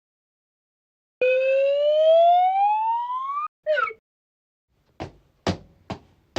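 A rising whistle-like tone, held about two seconds and gliding steadily upward before cutting off abruptly, followed by a short falling squeak. Then a run of sharp knocks, about two a second, begins near the end.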